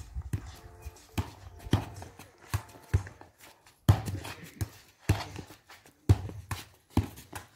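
A soccer ball being kicked and bouncing on stone paving: a string of sharp thuds at uneven intervals, about a dozen of them.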